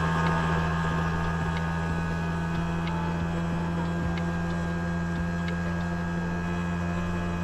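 Auto-rickshaw engine running steadily as the rickshaw drives along, a constant drone with a few faint clicks.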